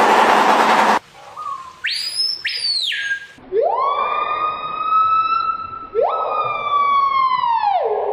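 A bird mimicking a siren: a burst of noise for about a second, then a couple of short whistles, then two long siren-like wails, each sweeping up, holding and sliding back down.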